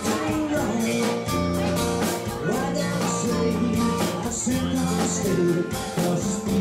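Live country-rock cover band playing, with drum kit, electric guitar and a held melody line over evenly spaced cymbal strokes.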